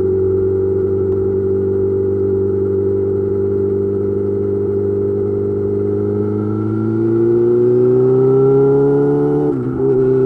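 Yamaha YZF-R6's inline-four engine through an M4 GP slip-on exhaust, running at steady revs, then climbing in pitch under acceleration for about three seconds before a sudden drop near the end as it shifts up a gear.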